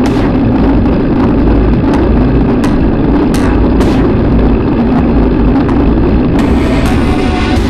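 Wind and road rumble on the microphone of a camera mounted by the front wheel of a moving mountain bike, with frequent sharp knocks and rattles from the bike rolling over pavement.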